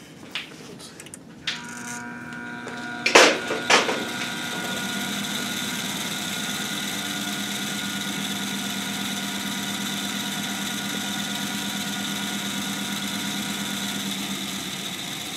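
Crankshaft balancing machine spinning a bob-weighted 454 big-block Chevy crankshaft for a test reading of its imbalance: a steady mechanical hum with a high whine, starting after two sharp knocks about three seconds in and dropping away near the end.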